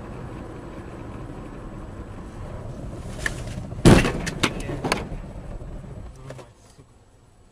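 A car's engine and road noise run steadily, then a loud crash about four seconds in is followed by several sharp knocks and bangs over the next second: a vehicle collision.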